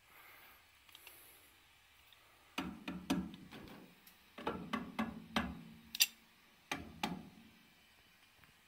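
Metal clinks and knocks of a pipe wrench being set on and worked against the gas pipe union at the gas valve. They come in several short bunches, with one sharp click about six seconds in.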